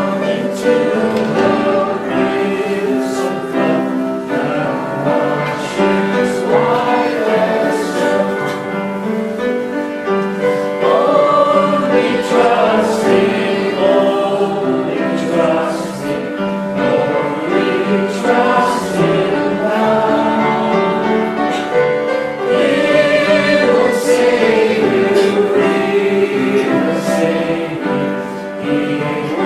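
Church congregation singing a hymn together, the invitation hymn sung at the close of the sermon.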